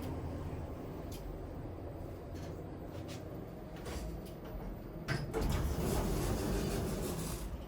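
Lift car running with a low hum, then a click about five seconds in and the automatic lift doors sliding for about two seconds.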